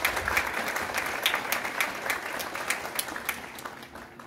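An auditorium audience applauding at the close of a talk, many hands clapping together, then dying away about three and a half seconds in.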